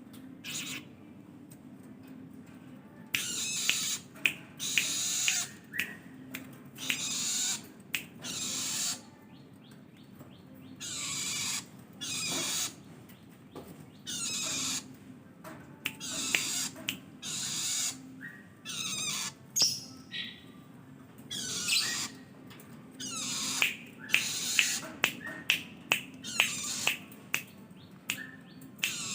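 Long-tailed shrike (cendet) singing a string of harsh chattering phrases, each about a second long with short gaps between, and a run of quick sharp notes near the end. A low steady hum runs underneath.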